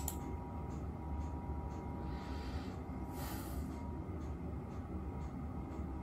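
A single mouse click, then a low steady hum with a faint steady whine that stops about three seconds in.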